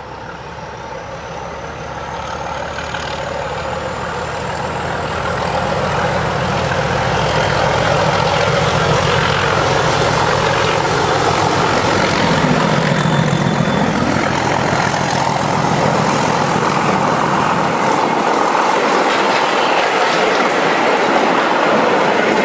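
Diesel locomotive passing close by with a train of coaches. The engine sound builds over the first several seconds and carries a high whine that rises slowly in pitch. The engine's low sound falls away after it has passed, leaving the coaches' wheels running over the rails with a few clicks near the end.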